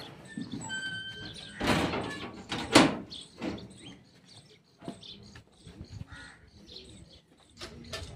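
A sheet-metal door pushed shut: a scrape, then a single loud clang as it hits the frame about three seconds in, followed by a few light knocks. Birds chirp faintly.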